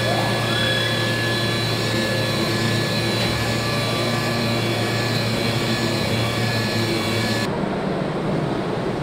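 Steady hum and whir of assembly-line machinery, with a constant low drone and a few steady tones over a hiss. About seven and a half seconds in, the sound changes abruptly and the hiss drops away.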